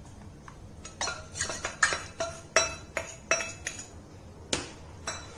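Steel spoon tapping and scraping against a bowl and the rim of a stainless steel saucepan: a quick run of ringing metal clinks, about a dozen, starting about a second in and ending near the end, as ground rice paste is knocked out of the bowl into the milk.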